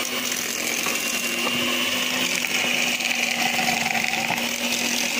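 Miyako electric hand mixer running at a steady speed, its beaters whipping a dalgona Milo mixture in a glass bowl until it foams up.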